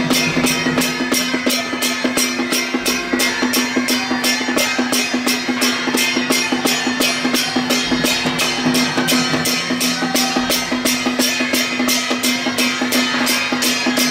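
Traditional temple-procession percussion music: drums and other percussion beating an even rhythm of about three strokes a second over a steady held tone.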